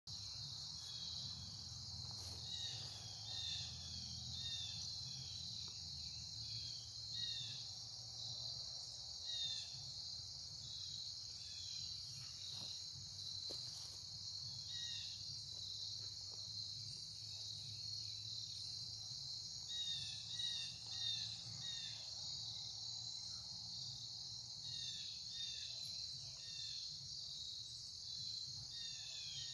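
Steady, high-pitched chorus of insects trilling without a break, with scattered short chirps coming and going underneath.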